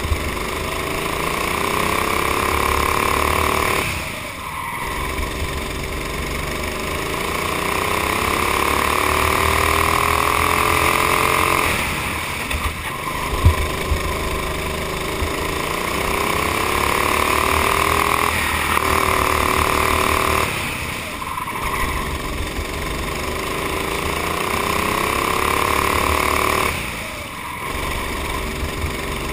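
Honda GX390 single-cylinder four-stroke kart engine under full throttle. Its revs climb steadily along each straight and fall away as the driver lifts for the corners, four times. There is one sharp knock about halfway through.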